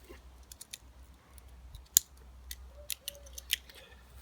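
Small, sharp clicks and ticks of hands working the pieces of a taken-apart Sharpie marker, with one sharper click about two seconds in.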